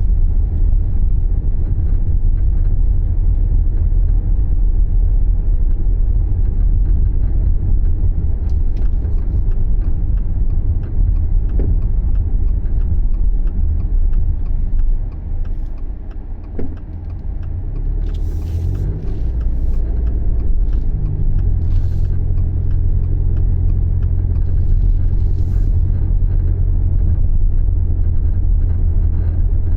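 Subaru Levorg being driven: a steady low rumble of engine and road noise, with the engine note rising for a few seconds past the middle and then levelling off. A few faint clicks and short hisses occur along the way. This driving noise is recorded as an abnormal noise, which is not pinned to any one sound.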